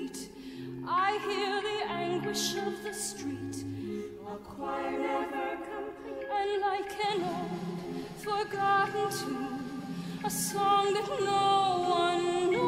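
Operatic singing: a soprano and a small vocal ensemble hold long notes with vibrato, without words, over lower held notes.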